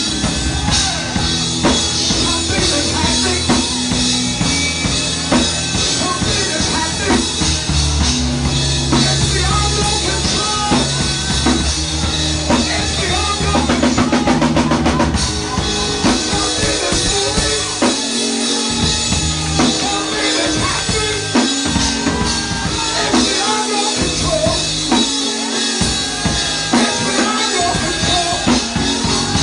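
Instrumental music driven by a drum kit, with kick drum, snare and bass, and a quick drum roll about halfway through.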